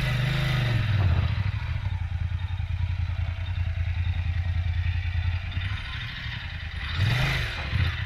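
Motorcycle engine running at low revs on the move. Its pitch drops slightly about a second in and rises briefly in a short throttle blip near the end.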